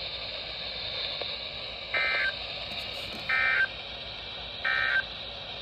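Three short bursts of SAME digital data tones from a NOAA Weather Radio broadcast, each about a third of a second long and about 1.3 s apart, over steady radio hiss.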